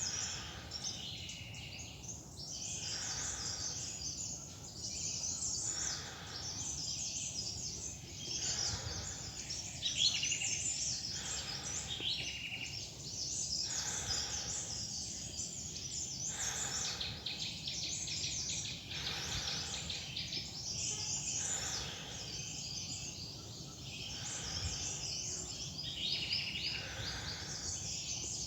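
Many small forest birds chirping and twittering, dense and overlapping, with soft regular footsteps on a loose-soil trail about every one and a half to two seconds.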